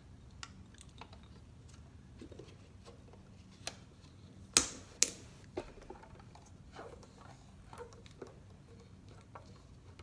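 Scattered light clicks and taps as hands press and handle a homemade heart-pump model of plastic cups, straws and a stretched balloon, with two sharp, louder snaps about halfway through.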